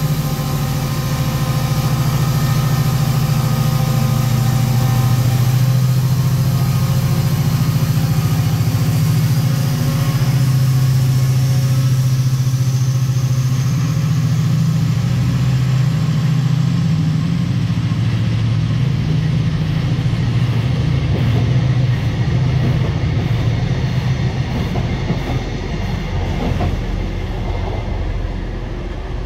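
Class 68 diesel-electric locomotive's Caterpillar V16 engine working hard as it pulls away with a loud, steady drone, a high whine rising in pitch over it; then the coaches roll past and the sound eases off near the end.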